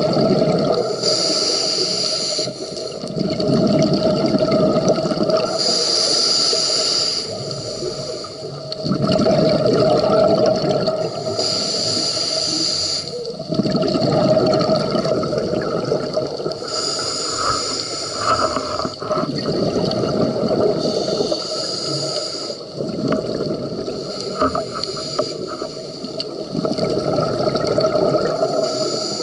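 Scuba diver's breathing through a regulator, heard from the filming diver: a high hiss on each inhale, then a longer low burble of exhaled bubbles, about five breaths repeating every five to six seconds.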